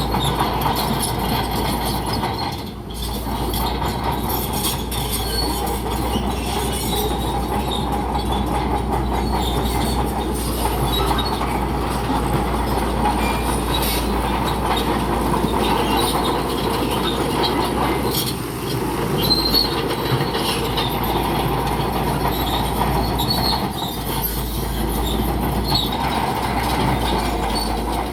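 Bulldozer working: its diesel engine runs steadily under the squealing, clanking and creaking of its steel tracks.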